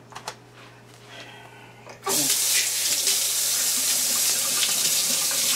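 Water from a kitchen tap running into the sink: it comes on suddenly about two seconds in and runs at a steady rush for about three and a half seconds. Faint handling clicks come before it.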